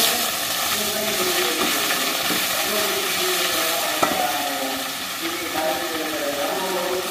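Leafy greens going into a pan of hot oil with onion, garlic and dried chillies, setting off a sizzle that starts suddenly and runs on steadily, easing a little later on. A single sharp click about four seconds in.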